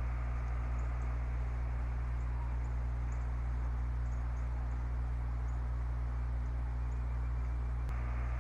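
Steady low electrical hum with a constant hiss, with faint, short high-pitched chirps scattered through. A single click comes near the end.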